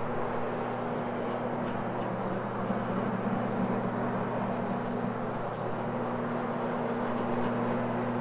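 Rotary floor machine running steadily, its hog's hair fiber pad scrubbing across carpet: a constant motor hum under an even rushing hiss.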